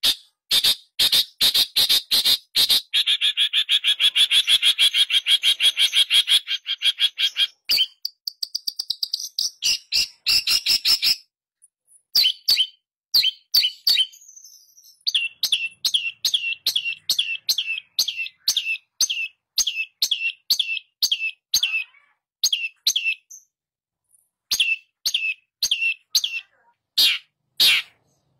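Long-tailed shrike (pentet) singing: a fast, buzzy chattering run of notes at first, then a steady series of short, harsh notes at about two a second, broken by brief pauses.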